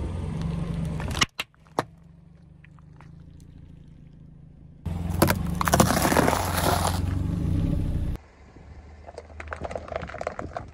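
Car engine running as a tyre rolls over objects, with a sharp crack about a second in. Around the middle comes a loud crackling crunch as a waffle ice-cream cone is flattened, and near the end there is lighter crackling as thin plastic yogurt cups are crushed.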